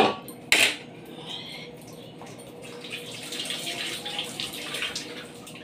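A steel lid clanks down onto a steel wok, with a second clatter about half a second later. Then comes a soft, steady bubbling hiss as the fish curry simmers under the lid.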